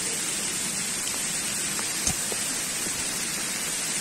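Steady hiss of rain falling on forest foliage, with one brief soft knock about two seconds in.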